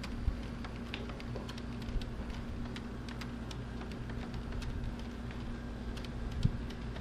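Model train (Bachmann Spectrum Acela with HHP-8 locomotive) running along the track: irregular light clicks of the wheels over the rail, with a steady low hum beneath and one louder knock near the end.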